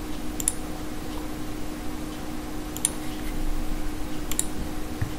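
Three faint computer mouse clicks, spaced about two seconds apart, over a steady low hum and microphone hiss.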